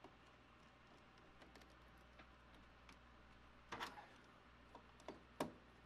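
Small clicks and taps of a screwdriver and pliers working on DIN-rail terminal blocks and fuse holders, mostly near silence. A short clatter comes about four seconds in, followed by a few sharp clicks.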